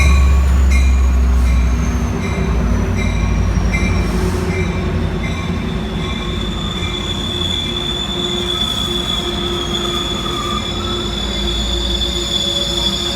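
Sounder commuter train moving through the station: a heavy low rumble for about the first two seconds, then a steady high-pitched squeal of wheels on the rails. A regular tick about twice a second fades out over the first few seconds.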